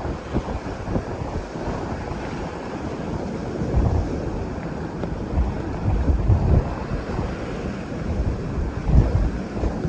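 Wind buffeting the microphone over the rushing and splashing of a sailing yacht's bow wave as the heeled hull cuts through choppy sea, with heavier gusts a few times.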